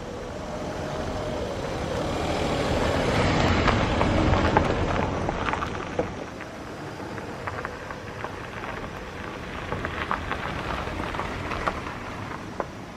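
A vehicle passing: its noise swells for about four seconds and then fades, followed by scattered light clicks.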